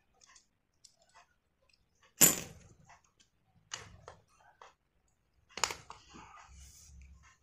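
Screwdriver and screws clicking and clinking against the metal housing of an air-horn compressor motor while its cover screws are undone. There are a few scattered sharp metallic knocks, the loudest about two seconds in and another a little before six seconds.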